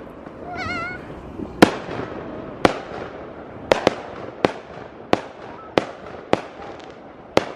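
Fireworks going off: a string of sharp bangs, roughly one every second, with crackling between them.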